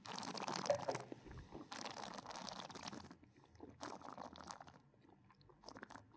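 A wine taster sipping red wine and drawing air through it in the mouth: two long airy slurps in the first three seconds, a shorter one about four seconds in, then small mouth clicks as the wine is worked over the palate.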